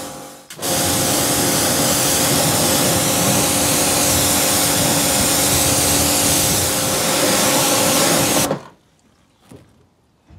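Pressure washer spraying a jet of water onto a car wheel and tyre, rinsing off the soap: a loud, steady hiss of spray with the pump's hum underneath. It starts about half a second in and shuts off about eight and a half seconds in.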